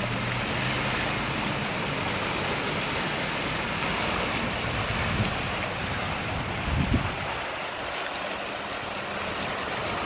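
Creek in flood after heavy rains: brown water rushing and churning through a concrete-edged channel, a steady rushing sound throughout, with a brief low thump about seven seconds in.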